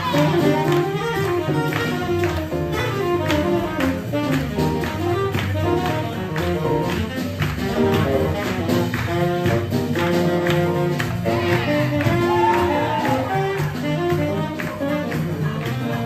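Live swing jazz with piano, playing with a steady beat.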